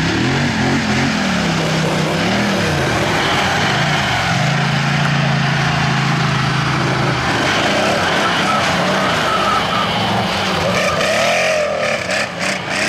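Quad bike (ATV) engines revving and running as the quads drive through mud and over grass, the engine pitch rising and falling several times with a steady stretch in the middle. A few sharp knocks come near the end.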